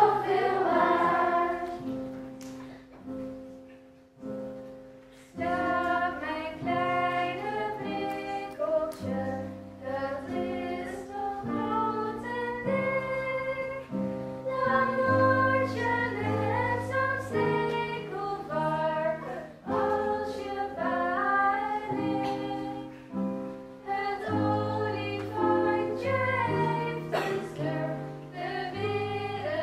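Children's choir singing with harp and keyboard accompaniment. The music thins to a few soft notes a couple of seconds in, then the full song resumes about five seconds in.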